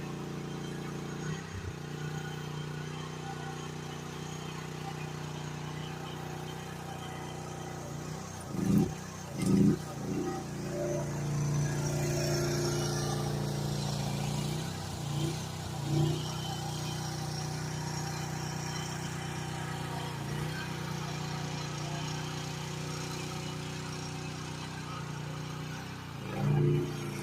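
GroundHog KH14G mini excavator engine running steadily under work, with a few brief louder bursts as it takes load.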